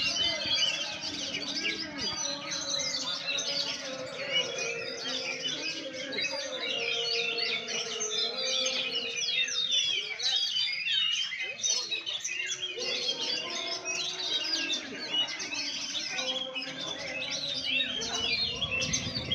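Oriental magpie-robins (kacer) singing together: a dense, continuous stream of rapid, varied chirps and whistles from several birds at once, over a low steady background hum.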